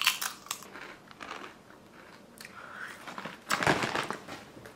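Pizza-flavoured potato chips being bitten and chewed by two people: a string of crisp crunches, loudest about three and a half seconds in.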